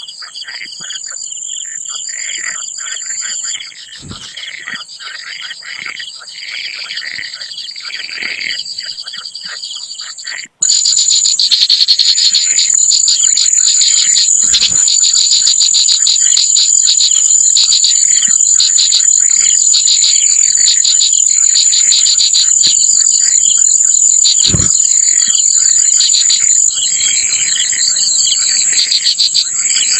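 Insects chirring in a steady high-pitched drone, with many shorter repeated calls over it. About ten seconds in, the sound cuts and comes back much louder.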